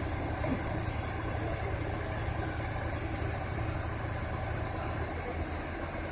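Heavy machinery engine running steadily with a low drone, its note dropping slightly about five seconds in.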